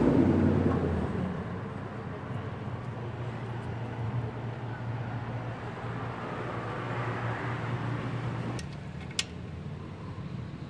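Steady low hum of a running vehicle engine nearby, loud for the first second, then lower and even, stopping about nine seconds in. A single sharp metallic click follows shortly after.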